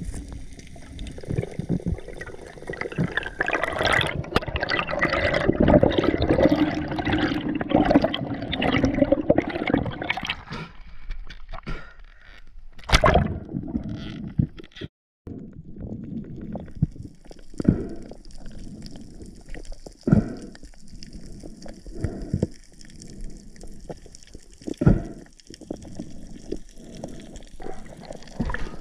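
Underwater water noise around a spearfisher's camera: bubbling and gurgling with scattered sharp knocks as the speared fish is handled on the spear shaft, with a brief break about halfway.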